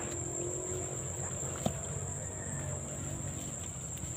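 Insects trilling outdoors in one steady high-pitched tone, with a single sharp click about a second and a half in.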